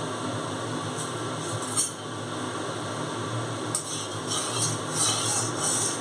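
A metal spatula scraping and clinking against an aluminium kadai of hot oil, in quick repeated strokes from about four seconds in, over a steady hiss; a couple of single clinks come earlier.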